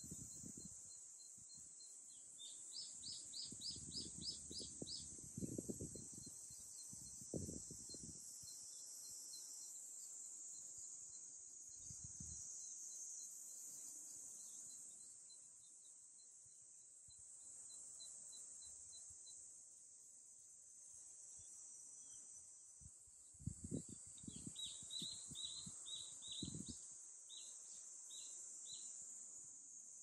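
Faint, steady high drone of summer cicadas, with a bird calling a quick run of about eight repeated notes a few seconds in and again near the end. Low rumbles come and go at those same times.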